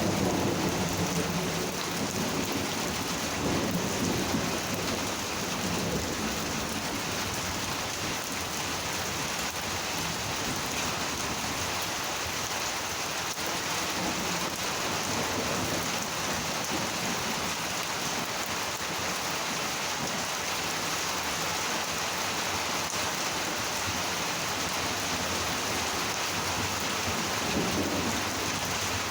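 Steady heavy rain of a monsoon thunderstorm, with low rolls of thunder at the start, again about four seconds in, and near the end.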